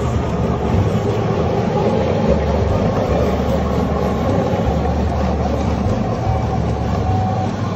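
Electric single-disc rotary floor machine running steadily, its brush scrubbing a rug wet with shampoo foam: a constant low motor hum under a broad scrubbing noise.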